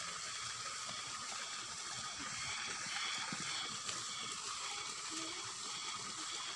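Steady outdoor background hiss with no distinct event.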